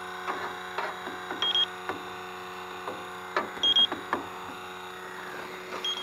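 Handheld electronic refrigerant leak detector giving a short high double beep about every two seconds, its slow idle rate rather than the rapid alarm of a leak, while its probe knocks and scrapes against the evaporator coil over a steady hum.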